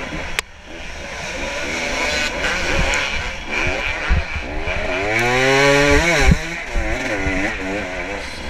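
Dirt bike engine heard close up from the rider's camera, revved up and down over a rough woods trail. The throttle closes just after the start, then a long rising rev from about five seconds in drops off sharply about a second later, with a few short thumps along the way.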